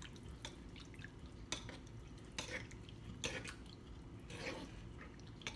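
A wooden pestle mashing and stirring a wet, brothy fish-and-eggplant mixture in a mortar, with soft, wet knocks roughly once a second.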